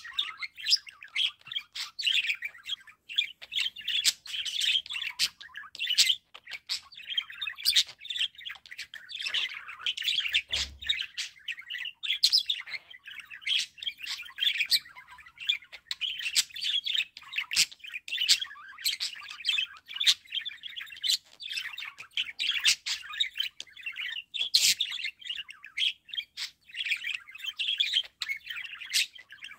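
Budgerigars warbling: a continuous stream of chattering chirps with many sharp clicks mixed in.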